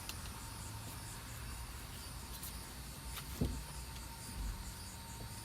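Faint handling noises of packaging being wrestled open by hand, a few light clicks and one thump about three and a half seconds in, over steady chirping of crickets.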